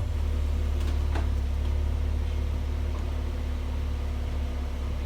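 Car engine idling: a steady low hum that holds even throughout.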